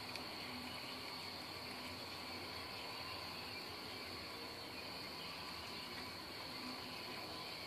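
Faint, steady high-pitched trill of insects, unbroken throughout.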